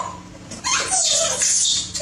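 Baby macaque crying: after a brief lull, a loud, shrill, wavering cry starts about half a second in and holds.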